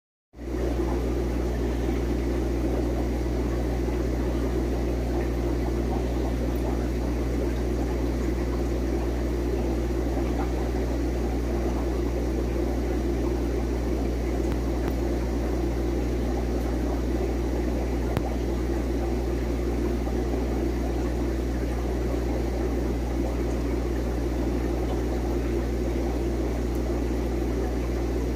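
Steady, unchanging electrical hum with a low drone and an even rushing layer above it, typical of running aquarium equipment such as a filter or air pump.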